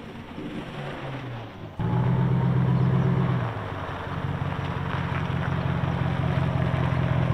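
Ram pickup truck's engine running at low revs through its dual exhaust as the truck rolls slowly. It is fainter at first, then louder and steady from about two seconds in, when heard close behind the tailpipes.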